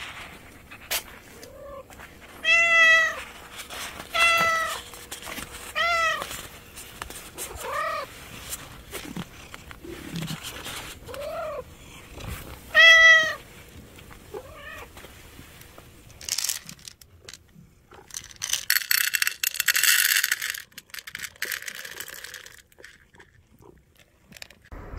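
A stray tortoiseshell cat meowing about six times, loud arching meows a second or two apart in the first half. Near the end, dry cat kibble is poured into a bowl with a rattling hiss lasting a few seconds.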